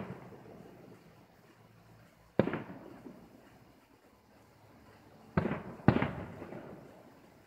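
Aerial firework shells bursting: one sharp bang about two and a half seconds in, then two more half a second apart near the end, each trailing off in a rolling echo.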